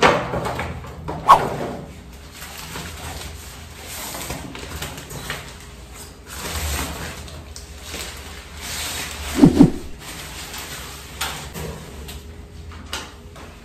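A shower curtain being hung: the curtain rustling and its hooks clicking and sliding along the shower rod, with a few sharper clicks and one short, louder sound about nine and a half seconds in.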